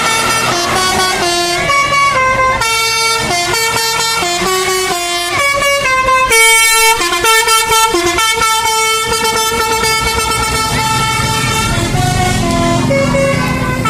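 Indonesian 'telolet' musical air horn on a bus, playing a tune of short stepped notes one after another.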